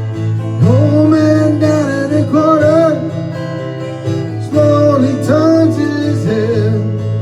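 Acoustic guitar music in a country style, with a bending melody line carried over the strummed chords.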